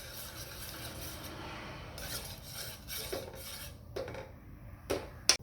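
A spoon stirring and scraping around a saucepan of water and spices, then a few sharp clinks near the end, the loudest just before it stops.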